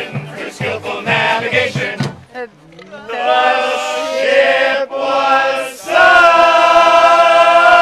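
A group of men singing a bawdy drinking song live; the verse breaks off about two seconds in, then the voices come back in long, drawn-out held notes, the loudest held steadily from about six seconds in to close the song.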